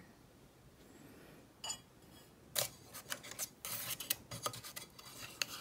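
Light clicks and taps of a hand handling a small black nabe pot and its lid on a tabletop burner stand. There is one click early, then a quick run of sharp clicks from about halfway in.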